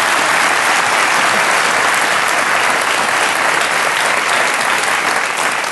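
Studio audience applauding, starting to die down near the end.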